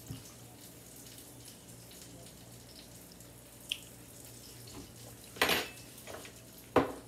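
Plates and utensils being handled: a faint click, then about five and a half seconds in a short clatter, and a sharp knock near the end, over a low steady hum.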